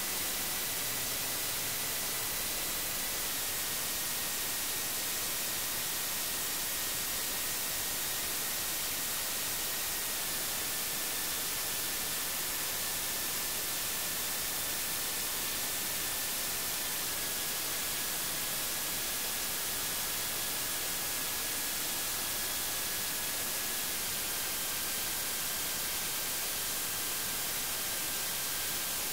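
Steady hiss of electronic white noise with a faint high tone in it that steps down slightly in pitch about every seven seconds.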